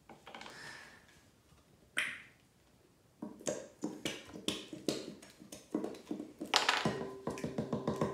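A few scattered clicks, then a quick run of sharp taps, with background music with a steady beat coming in near the end.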